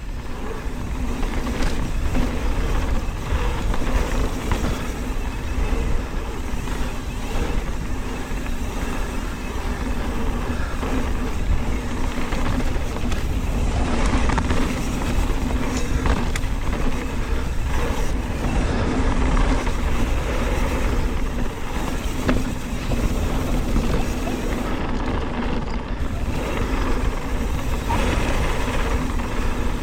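Mountain bike descending a dirt flow trail at speed: a steady rush of wind on the microphone over the rumble of the tyres.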